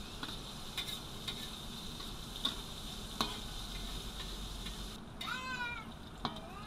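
Light clinks of cooking utensils at a stove over a steady high-pitched drone. About five seconds in comes a short high call that bends down in pitch.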